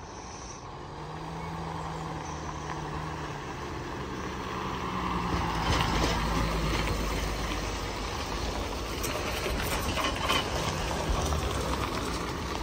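Mercedes-Benz GL-Class SUV towing a boat trailer driving slowly past: a low engine hum with tyre and road noise that grows louder as it approaches, is loudest about halfway through as it passes, and then fades as it moves away.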